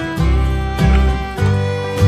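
Background music: an upbeat country-style tune with plucked guitar and fiddle over a steady bass beat.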